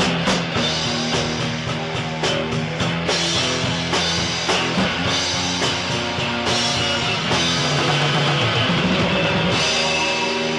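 Rock music: guitar over a steady drum beat of about two hits a second, the beat fading into sustained guitar chords after about six seconds.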